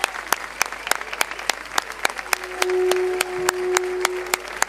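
A crowd clapping together in a steady rhythm, about three to four claps a second. About two seconds in, a single long held note sounds over the clapping for around two seconds.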